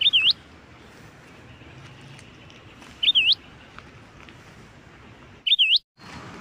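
A bird calling: a short, loud whistled note that dips and then sweeps up, given three times about three seconds apart.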